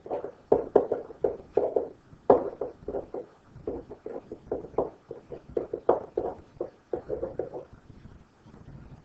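A quick irregular series of light knocks and taps, several a second, with a short pause about two seconds in, thinning out near the end.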